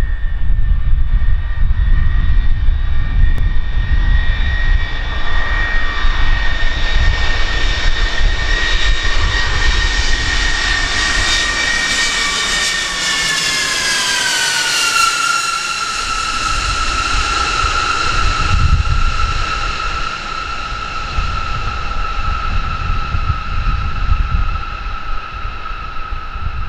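Lockheed C-5 Galaxy's four turbofan engines passing low overhead on approach: a loud high whine over a deep rumble. The whine slides down in pitch about halfway through as the aircraft goes over, then holds at a lower pitch as it moves away.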